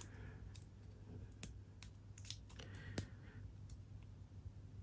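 Faint, irregular clicks of a lock pick and tension wrench working the pin stack of a Yale padlock, about eight small ticks at uneven intervals.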